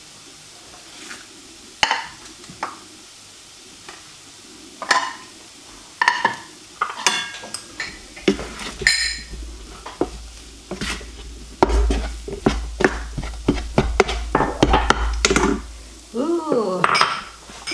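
A spatula scraping and clinking in a frying pan as fried rice is scooped into a ceramic bowl: irregular clinks and scrapes, sparse at first and busier in the second half.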